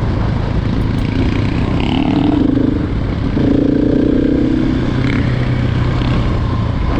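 Single-cylinder enduro motorcycle engine running on a loose gravel trail, its revs stepping up and down a few times, with rattling from the bike over the rough ground.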